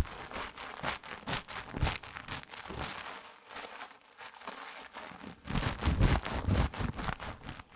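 Close-miked crinkling and rustling of ASMR haircut sound effects, in quick crisp strokes that thin out around the middle and pick up again later on.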